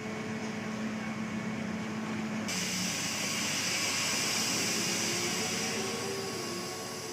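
Heavy machinery running with a steady hum. A loud hiss sets in suddenly about two and a half seconds in, and the sound fades out near the end.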